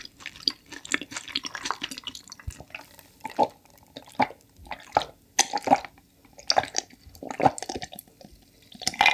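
Close-miked drinking of cola from a glass: small wet mouth clicks, then a run of separate gulps as it is swallowed.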